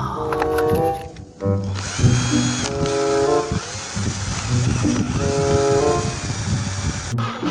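Power drill whirring steadily for about five seconds, starting after a short pause, with background music playing over it.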